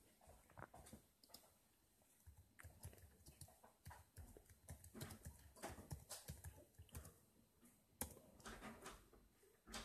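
Near silence with faint, irregular clicks and taps from a handheld phone being handled and tapped.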